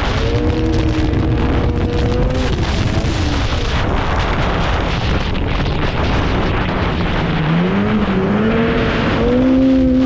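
Snowmobile engine running under way over a steady rush of noise. Its pitch climbs about half a second in and again over the last couple of seconds.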